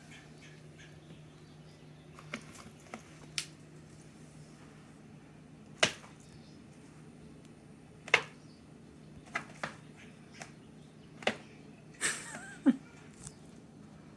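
Scattered sharp clicks and taps, about a dozen, irregularly spaced and clustered near the end, over a faint steady low hum.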